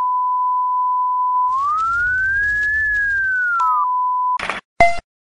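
Steady line-up test tone of the kind played with colour bars. About a second and a half in, it bends up in pitch and back down over about two seconds with a hiss underneath, then holds steady again. Near the end it breaks into a short noisy burst and a brief countdown-leader beep.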